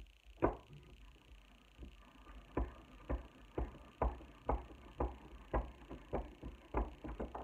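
Steel bench vise being cranked by its handle: a regular metallic click about twice a second as the handle turns.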